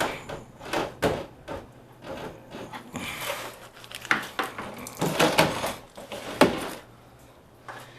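A string of knocks, clunks and scraping rattles from equipment being handled and moved, with sharp knocks about a second in and near the end, over a faint steady low hum.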